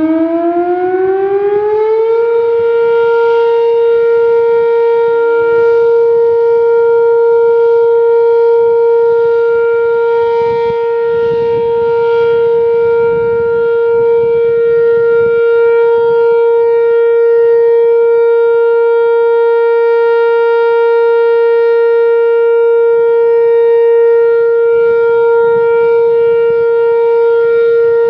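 Whelen WPS-4004 electronic outdoor warning siren sounding a steady alert tone for a monthly tornado-siren test. It rises in pitch over about the first two seconds, then holds one steady, loud note rich in overtones. Wind buffets the microphone underneath.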